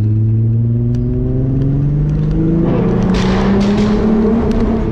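Engine of a VR6-swapped Mk3 Volkswagen pulling hard through a gear, heard from inside the cabin, its pitch rising steadily. About halfway through, the car enters a short tunnel and the exhaust gets louder and rougher, with some crackle.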